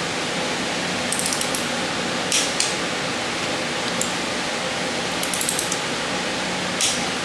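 Click-type torque wrench ratcheting on a cylinder head bolt in quick runs of small clicks, about a second in and again past five seconds. Single sharper clicks come between the runs: the wrench clicking over as each bolt reaches its set torque. A steady hiss runs underneath.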